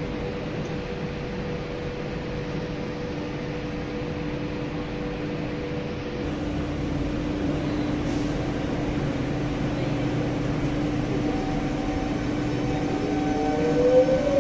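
Trenitalia ETR 104 'Pop' electric multiple unit rolling slowly alongside the platform, a steady electric hum with two held tones. Near the end a rising whine comes in and the sound gets louder.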